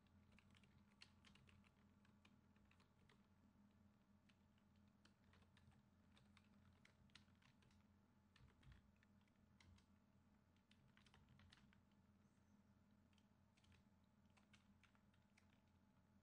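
Faint typing on a computer keyboard: irregular runs of keystroke clicks, over a steady low electrical hum.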